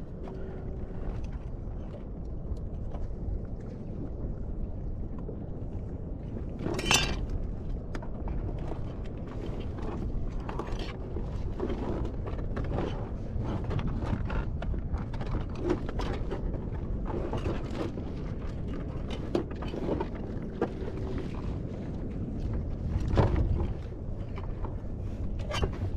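Steady wind and water noise with scattered clicks and knocks from crabs and a crab trap being handled on a kayak. A louder knock comes about a quarter of the way in, and another near the end.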